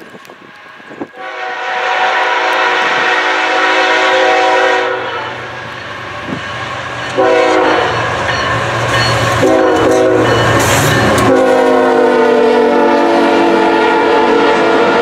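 Freight locomotive horn blowing a chord of several tones: a long blast, then a run of blasts as the train closes in, dropping in pitch as the lead locomotive passes, over the rumble and clatter of the train.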